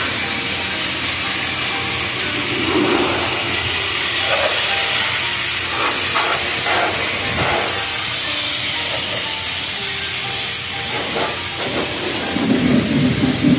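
Pressure-washer wand spraying a high-pressure water jet onto a pickup truck's tyre, wheel well and door: a steady hiss of spray, louder and more spattering near the end.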